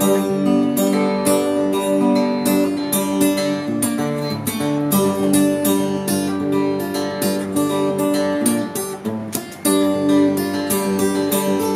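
Steel-string acoustic guitar strummed in a steady rhythm: the instrumental opening of a song. The playing drops back briefly about nine and a half seconds in, then picks up again.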